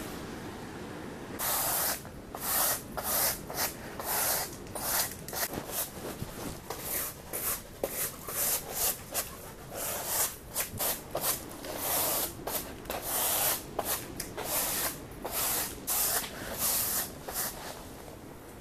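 A small hand brush sweeping a tent's canvas floor into a plastic dustpan: short, scratchy swishes of the bristles, about two strokes a second, starting about a second and a half in and stopping shortly before the end.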